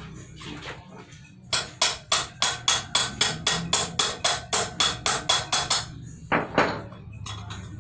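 Hammer striking metal at a motorcycle's rear wheel hub during sprocket replacement: a fast, even run of light blows, about five a second, for some four seconds, then two heavier blows near the end.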